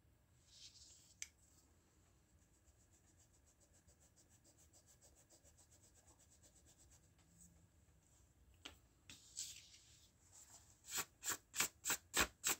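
A Clic stick eraser rubbing quickly back and forth on Strathmore drawing paper in a faint, even run of short strokes. A run of louder, sharper rubbing strokes comes near the end.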